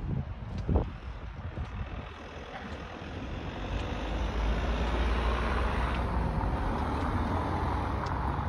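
Street traffic: a motor vehicle's engine rumble and road noise grow louder over a couple of seconds, then hold steady.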